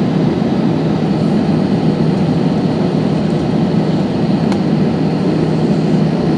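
Jet engines of an Airbus A320 flying low overhead with its gear down: loud, steady engine noise with a low hum under it.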